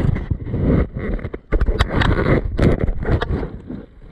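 Loud movement and handling noise on a body-worn microphone: rumbling buffets, rustling and irregular sharp knocks and clicks of gear as the player moves quickly. It eases off near the end.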